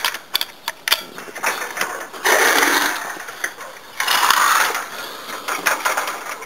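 Close handling noise against a chain-link fence: irregular metallic clicks and rattles, with two louder scraping, rustling bursts about two and four seconds in.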